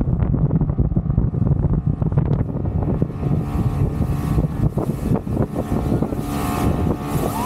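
1960s motorboat under way, its engine running steadily with wind noise on the microphone.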